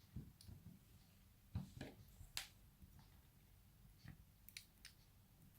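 Faint, sparse clicks and light taps from small metal lock parts being handled while the lock is taken apart, with the sharpest few about a second and a half to two and a half seconds in.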